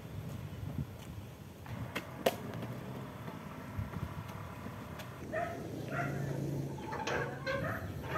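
Quiet outdoor background with two sharp clicks about two seconds in, then a run of short, repeated animal calls from about halfway through.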